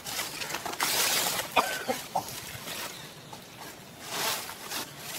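Plastic drink packet crinkling and rustling in a macaque's hand, in bursts about one second in and again near the end, with a few short, high squeaks between them.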